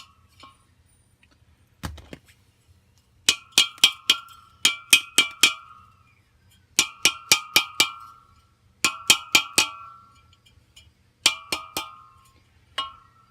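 Hammer blows on a metal part, struck in quick runs of four or five with short pauses between, each blow ringing briefly.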